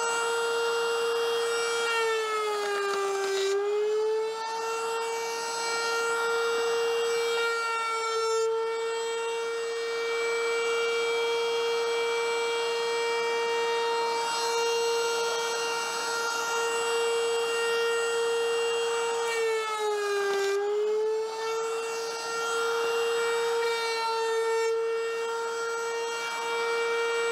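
Table-mounted router running at full speed with a steady high whine. Twice, about three seconds in and again about twenty seconds in, its pitch sags and then recovers as the round-over bit bites into the edge of a wooden box.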